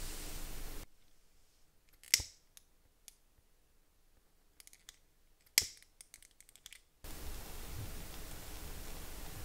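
Two sharp, scratchy strikes about three and a half seconds apart as a small flame is struck to light a strip of paper incense, with a few faint clicks between them. A steady hiss sits before and after this quieter stretch.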